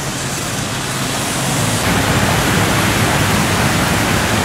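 Steady rushing hiss of water as cars drive through a flooded street, their tyres throwing up spray; it gets louder about two seconds in.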